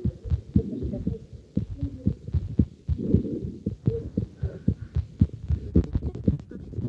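Heart sounds heard through a stethoscope during auscultation: a run of low, dull heartbeat thumps, with a louder, noisier stretch about three seconds in.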